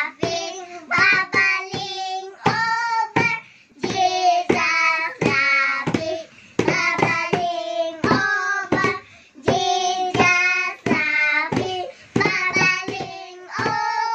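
Young girls singing a song together, in short sung phrases with brief breaks between them.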